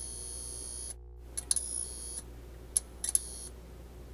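Digital glitch sound effects of a logo intro: stretches of a high-pitched electronic whine that cut off abruptly, sharp clicks, and a brief dropout to silence about a second in.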